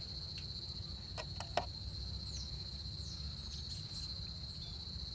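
Steady high-pitched insect trill over a low rumble, with a few light clicks and a sharper knock about a second and a half in.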